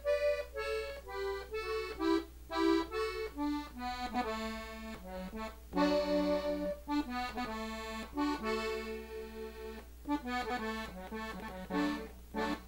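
Gabbanelli three-row button accordion played slowly, note by note. It begins with a quick run of notes stepping down in pitch, moves to longer held notes, and ends with a few quicker notes again.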